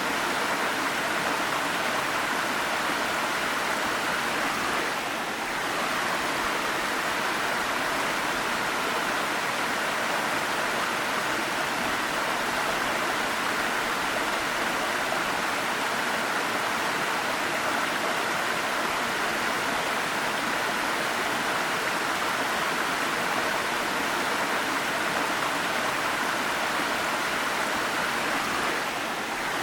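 Waterfall: a steady rush of falling water, dipping slightly for a moment about five seconds in and again near the end.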